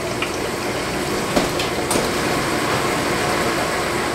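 Bottle-sanitizer station spraying rinse inside an inverted 5-gallon water jug: a steady rushing hiss, with two light clicks between one and two seconds in.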